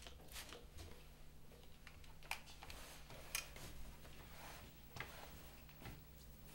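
Faint handling sounds at an ironing board: a few light knocks as a clothes iron and a spray bottle are set down, and soft rustling as a shirt is smoothed out, over a low steady hum.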